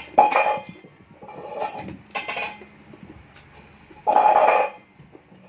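Close-miked eating sounds of someone sucking and chewing on adobo chicken feet, in several short wet bursts, the loudest about four seconds in.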